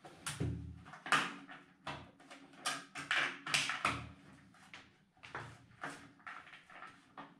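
Irregular scraping, rustling and knocking of a round plastic ceiling vent fan, like a bathroom exhaust fan, being handled and pushed into place overhead, with a few dull knocks.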